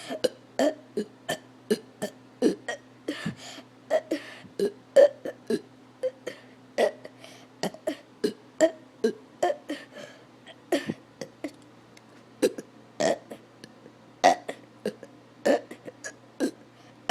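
A person burping over and over: dozens of short burps in quick succession, about two or three a second. He is burping because he drank a lot of water.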